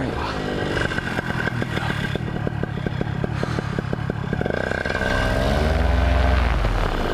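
Paramotor engine idling with a regular pulsing beat, its pitch rising briefly at the start. About four and a half seconds in it revs up to a louder peak, then falls back near the end.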